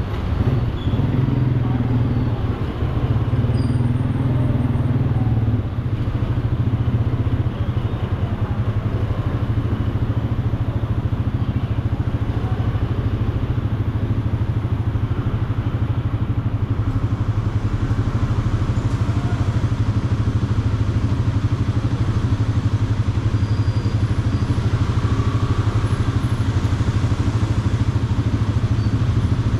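Motorcycle engine heard from the rider's seat, running at low speed through the first few seconds, then idling steadily while stopped in traffic.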